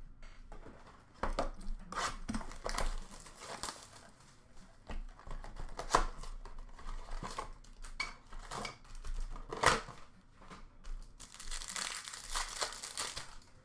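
Hockey card pack wrappers being torn open and crinkled by hand, in irregular crackles and tears, with a denser stretch of crinkling near the end.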